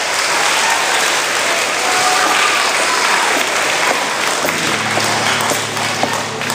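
A school-assembly audience applauding, the clapping thinning out toward the end into scattered single claps. A low steady tone comes in under it about four and a half seconds in.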